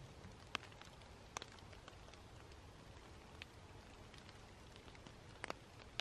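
Rain in a forest: faint, steady patter with single drops tapping sharply here and there, the loudest about half a second in, near a second and a half, and near the end.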